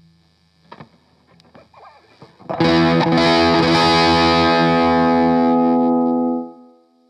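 Electric guitar played through a Boss BD-2 Blues Driver overdrive pedal. A few soft picked notes and string noises come first; about two and a half seconds in, a loud overdriven chord is strummed and left to ring for about four seconds before it is cut off.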